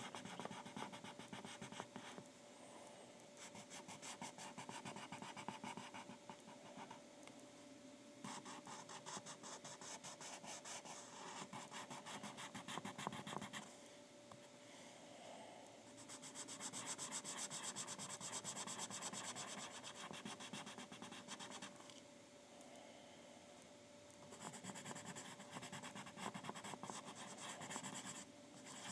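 Graphite pencil scratching on paper in runs of quick, closely spaced strokes, about five runs with short pauses between them.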